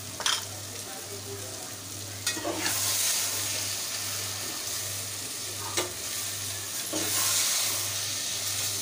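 Onion-tomato masala frying in oil in a metal pot, sizzling as it is stirred and browned (bhuna) with a metal spoon. The spoon knocks against the pot a few times, and the sizzle swells about two and a half seconds in and again near the end as the masala is turned.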